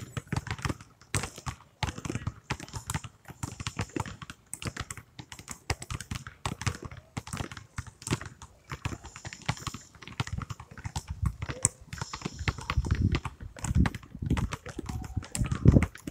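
Several basketballs being dribbled on asphalt at once, a steady irregular patter of overlapping bounces, the thuds heavier in the second half.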